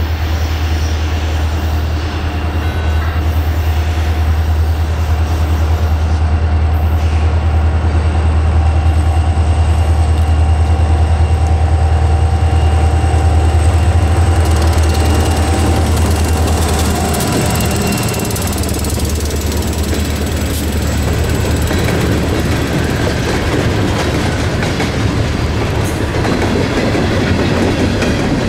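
Freight train passing close by: two diesel locomotives' engines rumble as they approach and go past about halfway through, then the freight cars roll by with their wheels clattering on the rails.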